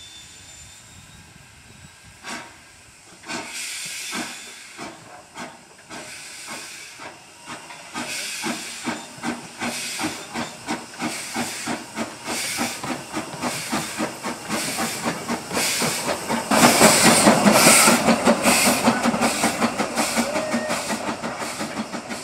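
Saddle-tank steam locomotive working slowly toward the listener, its exhaust chuffing in evenly spaced beats that grow louder and quicker. About three quarters through, a loud rush of steam hiss lasts a second or two, and the beats carry on after it.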